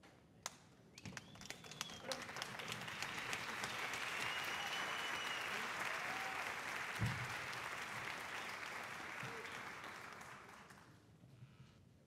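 Audience applauding in a theatre: a few scattered claps at first, swelling into full applause, then dying away near the end. A single low thump about seven seconds in.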